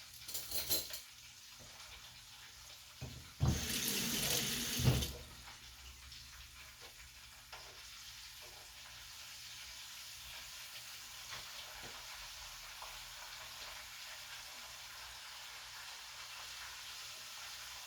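Chicken frying in a pot of hot grease: a steady sizzle, with a louder rush of noise lasting about a second and a half, about three and a half seconds in.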